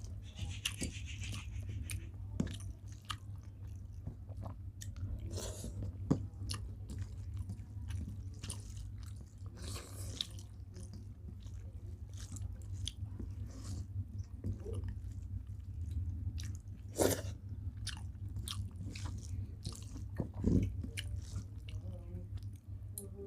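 Close-up chewing and biting of a rice-and-curry meal, with frequent small clicks and smacks of the mouth, over a steady low hum.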